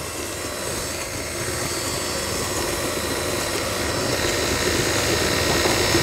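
Electric tilt-head stand mixer running steadily, its beater working a thick creamed butter-and-sugar mixture in a glass bowl, slowly growing louder.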